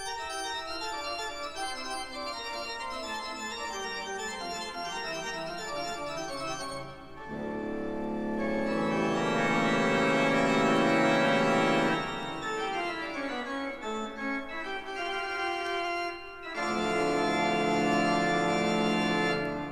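Pipe organ music from a vinyl record: a descending passage in the bass, then a loud full chord held for several seconds, a falling run of notes, and a final loud held chord that stops near the end.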